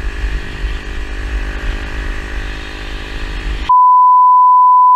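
Small motorcycle engine running steadily at speed, with heavy wind rumble on the helmet-camera microphone. About three and a half seconds in, the riding sound cuts out and a loud, steady one-tone censor bleep takes over.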